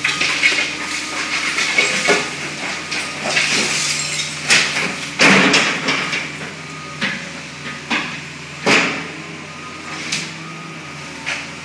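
Trash and demolition debris dropped from an excavator's demolition grapple clatter and crash into a steel trailer over the steady hum of the excavator's engine. The loudest crash comes about five seconds in, followed by single knocks about a second apart.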